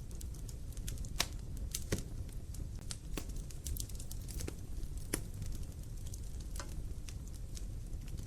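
Wood logs burning in a fireplace: a steady low rumble of the flames with irregular sharp crackles and pops, the loudest about a second in, near two seconds and around five seconds in.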